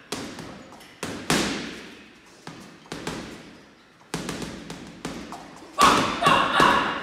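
Gloved punches landing on a heavy punching bag: about ten sharp thuds at an uneven pace. A harder three-punch combination near the end makes the bag's hanging chains ring.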